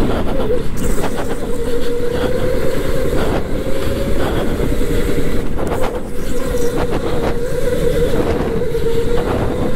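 Electric go-kart's motor whining at speed, its pitch holding nearly steady and dipping slightly then rising again near the end, over a heavy rumble from the kart; a few short knocks break in along the way.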